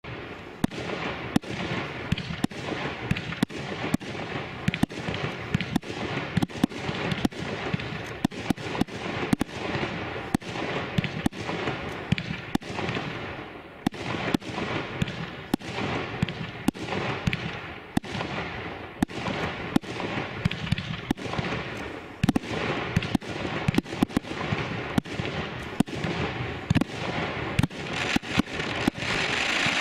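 Fireworks display: aerial shells going off in sharp bangs, about one or two a second and sometimes in quick clusters, over a steady hiss of burning effects between them.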